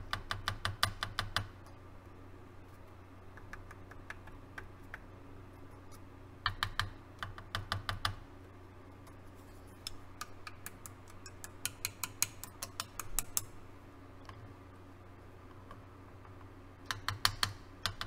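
Rapid light clicking in four bursts, at the start, around six to eight seconds in, from about ten to thirteen seconds and near the end: a probe tapping and prodding parts on the Yamaha CR-1020 receiver's protection board in a tap test for an intermittent solder joint. A faint low hum runs underneath.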